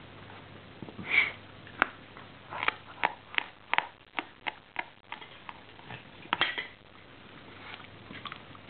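Basenji dog biting and chewing a raw fish head: a quick run of sharp, wet crunches and smacks, a second cluster a little later, and a few fainter ones near the end.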